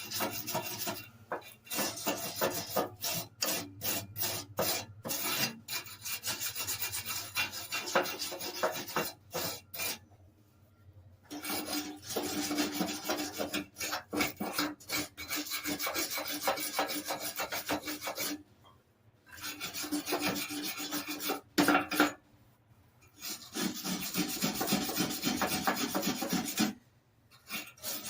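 A hand brush scrubbing dirt off a lawn mower deck in quick back-and-forth strokes, in several bouts with short pauses between them.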